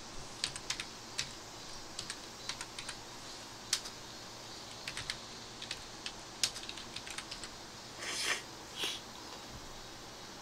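Typing and clicking on a computer keyboard: irregular sharp keystroke clicks, with two short hissing sounds a little after eight seconds in.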